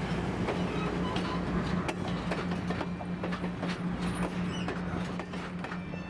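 Train running on the rails: a steady low drone with frequent clicks, creaks and short squeaks from the rolling stock.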